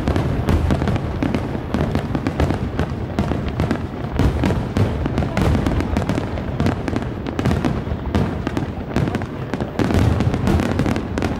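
Fireworks display: a dense, continuous barrage of aerial shell bursts and crackle, many reports overlapping with deep low bursts underneath.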